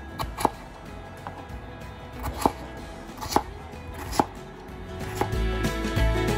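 Kitchen knife chopping raw potato into cubes on a wooden cutting board: about half a dozen sharp knocks of the blade hitting the board, roughly one a second. Background music plays throughout.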